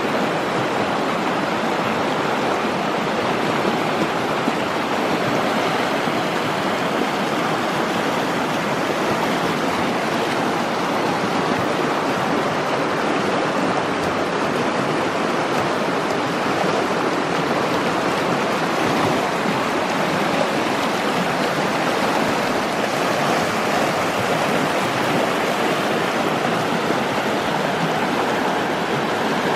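Shallow mountain river rushing over a stony gravel bed: a steady, even rush of water.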